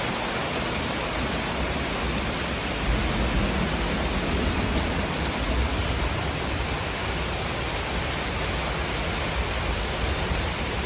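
Heavy storm rain pouring down: a steady, loud hiss with a deep rumble underneath that swells about three to six seconds in.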